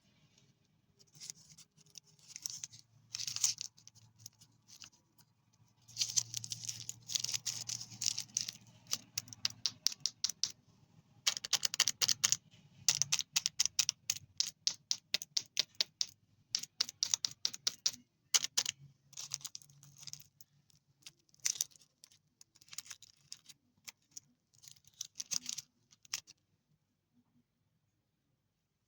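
Plastic candy wrappers and packaging being handled and crinkled: irregular bursts of quick crackling clicks, with short pauses between them.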